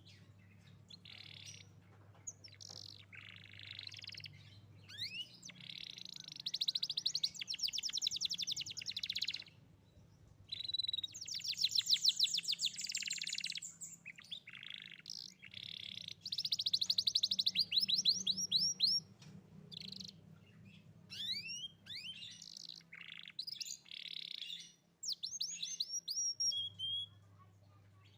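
Young domestic canary singing. Long phrases of fast, even trills and rolls, mixed with quick rising and falling sweeping notes, are broken by short pauses.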